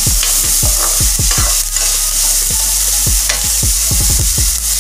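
Chopped onion, tomato and capsicum sizzling in oil in a metal kadai while a metal spoon stirs them, scraping against the pan many times at an irregular pace over the steady hiss of frying.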